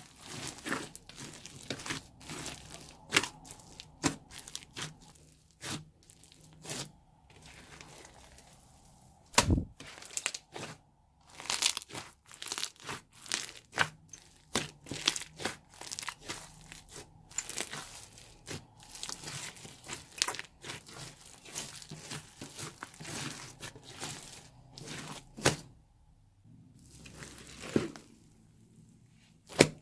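Sticky slime with foam bricks mixed in, squeezed and stretched by hand: irregular crackling, crunching and popping, with one loud pop about nine seconds in and a couple of quieter pauses.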